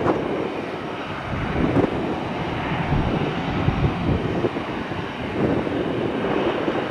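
Jet engine noise of a twin-engine airliner climbing out after takeoff: a steady rumble with uneven, crackling swells.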